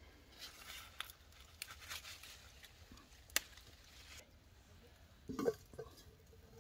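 Hand-picking grapes: vine leaves and stems rustle and crackle, with small clicks and one sharp click about three and a half seconds in. Near the end comes a duller knock as a bunch is laid in an enamel basin.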